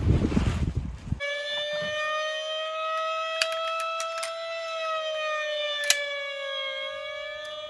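Emergency-vehicle siren sound for a toy fire engine or police car, holding one slow wailing tone that rises and falls gently, with a few sharp clicks. It cuts in abruptly about a second in, right after a loud rumbling noise stops.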